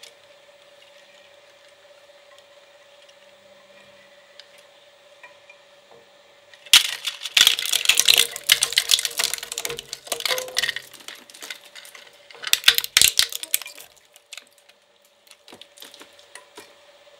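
Twin-shaft shredder cutters catching and tearing apart a Hot Wheels toy transport truck, with several seconds of dense cracking and crunching about seven seconds in. A short pause follows, then another burst and a few scattered clicks as the last pieces go through. A steady hum runs underneath.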